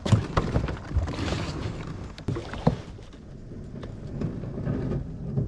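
A kayak and its gear being handled and loaded: a series of sharp knocks and thumps over a steady rushing noise.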